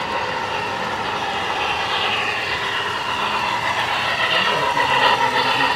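HO-scale model train running on the layout, a steady rolling rumble and rattle that grows a little louder toward the end.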